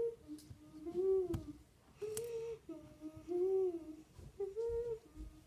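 A child humming a short tune of about five held notes that rise and fall in pitch, with a sharp click about a second in.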